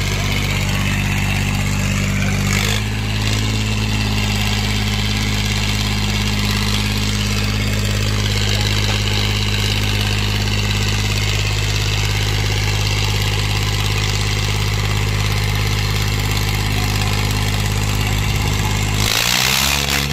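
Diesel tractor engine running steadily at a constant speed; near the end its note changes and takes on an even, pulsing throb.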